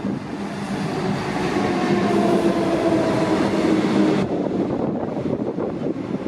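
Comeng electric suburban train running, a steady hum with a whine that drops slightly in pitch over a rushing rail noise; the rushing noise drops away suddenly about four seconds in.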